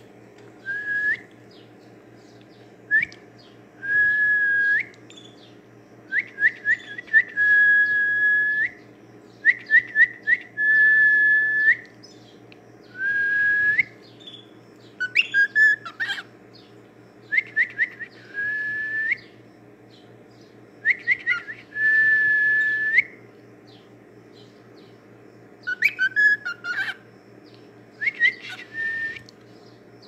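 Male grey cockatiel whistling its song: phrases of a few quick rising chirps run into a long, level whistle that flicks upward at the end, repeated every two to three seconds. A low steady hum runs underneath.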